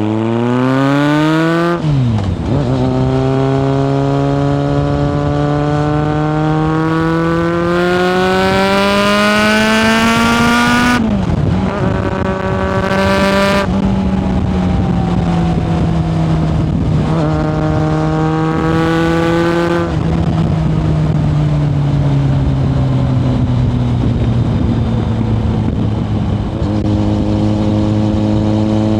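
A 1997 Kawasaki ZRX1100's inline-four running through a Yoshimura exhaust, heard from on board while riding. The engine note climbs and drops sharply about two seconds in, as in a gear change, then pulls up steadily to a second sharp drop around eleven seconds. It rises once more and then eases down slowly for several seconds before picking up again near the end.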